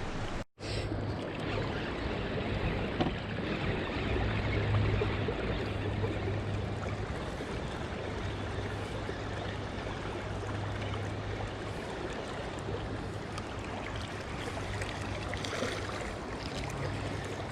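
Steady rushing noise of flowing river water, with a low steady hum underneath, after a brief dropout about half a second in.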